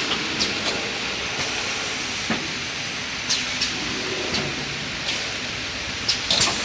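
XY-AI-653D 9-roll toilet paper bundle packing machine and its pneumatic cylinders in a workshop: a steady mechanical hiss with sharp clicks and clacks every second or so, some followed by a brief air hiss.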